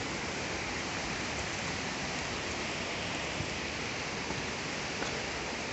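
Steady rushing of the Çoruh River, which is running high, an even hiss of flowing water.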